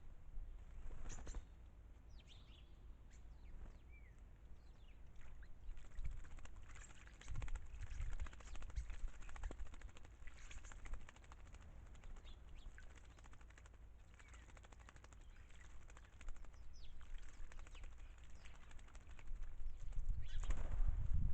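Small garden birds bathing in a birdbath: rapid wing-fluttering and splashing in bursts, with scattered short chirps. A low rumble swells near the end.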